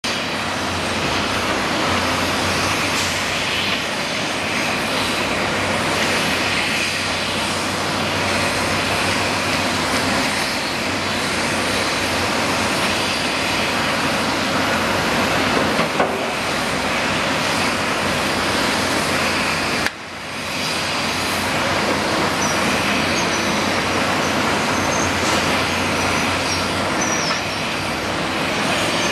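Caterpillar 385C excavator running as it digs and loads a dump truck, against a steady wash of city traffic noise. A single sharp knock about halfway through.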